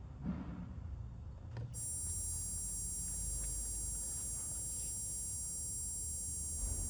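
Insulation resistance tester starting a test: a thump and a click, then from about two seconds in a steady, high-pitched electronic whine made of several tones, over a low hum.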